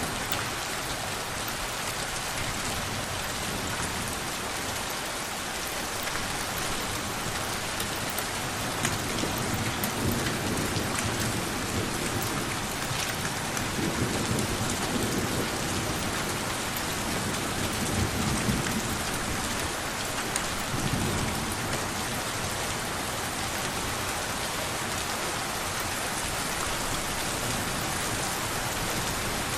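Steady rain pattering, with a few low rolls of distant thunder rising and fading through it.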